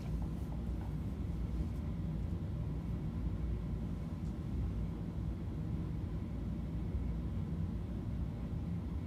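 Electric box fan running: a steady low rumble with no change in level.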